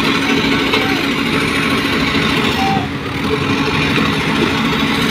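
Heavy diesel machinery engine running steadily, with a brief dip in level about three seconds in.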